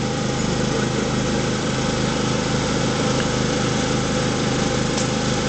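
A steady, unbroken machine hum with an even drone and hiss. Nothing starts, stops or changes.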